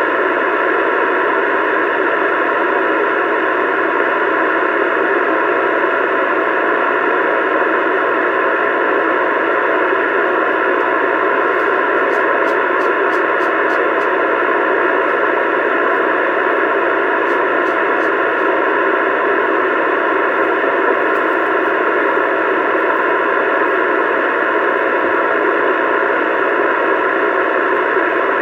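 CB radio receiver hissing with steady static through its speaker, no voice coming through. A few faint ticks sound around the middle.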